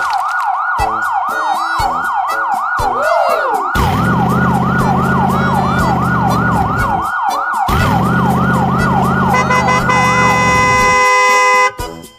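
Emergency-vehicle siren in a fast yelp, its pitch rising and falling about three times a second, joined twice by a long low droning blast of about three seconds each; the siren stops near the end.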